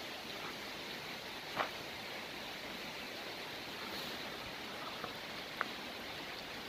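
Steady rushing of a river flowing alongside, with a couple of faint short clicks.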